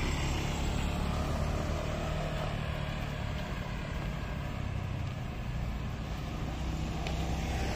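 Street traffic: vehicle engines running steadily as a low rumble with a constant hum.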